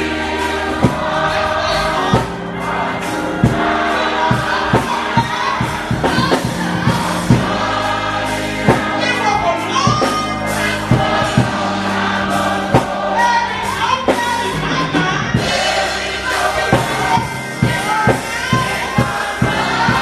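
Gospel choir singing over a band with drums and bass, a steady beat.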